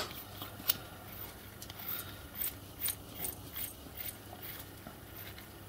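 Light clicks and small scrapes of turned steel miniature-locomotive buffer parts being handled and twisted together, as the sprung buffer head is fitted onto its M6 bolt. The clicks come thickly for the first few seconds and thin out toward the end.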